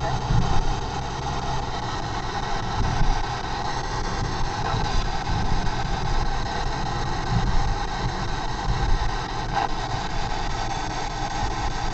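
Steady road and engine noise inside a moving car, overlaid by the hiss of a P-SB7 spirit box sweeping the FM/AM radio bands.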